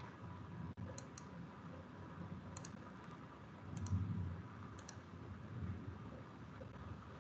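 Faint computer mouse clicks, mostly in quick pairs like double-clicks, about five times, with a brief soft low sound near the middle.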